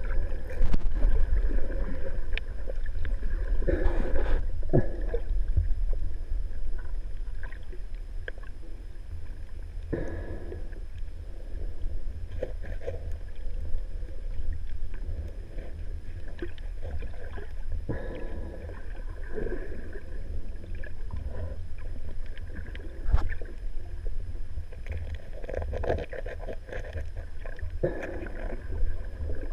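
Muffled underwater sound heard through a waterproof action-camera housing while snorkeling: a steady low rumble of moving water, with scattered small clicks and knocks and a few swelling surges.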